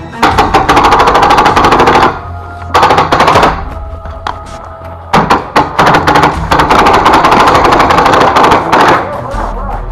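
Paintball marker firing in rapid full-auto bursts, three strings of fast pops with short gaps between them; the longest string comes in the second half. Background music plays underneath.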